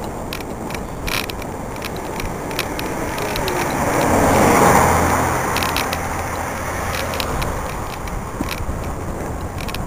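A coach bus passes in the opposite lane. Its engine and tyres swell to a peak about halfway through, then fade with a low engine hum. Underneath are steady wind and road noise from a bicycle-mounted camera, with scattered light clicks.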